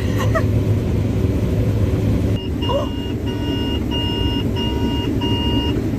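Combine harvester's engine droning steadily in the cab, with a run of about five electronic warning beeps from about three seconds in: the combine's grain-tank-full alarm.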